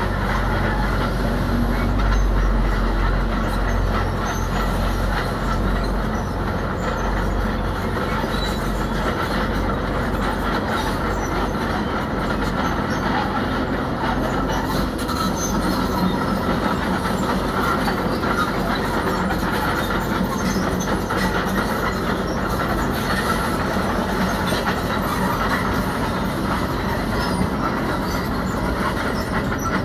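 Heavy tracked earthmoving machinery at work: diesel engines running steadily under load with the clatter of steel tracks and rock, a little heavier in the low end for the first few seconds.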